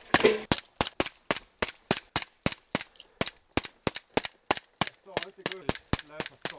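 Toy pistol firing a rapid string of sharp shots, about four a second, stopping shortly before the end.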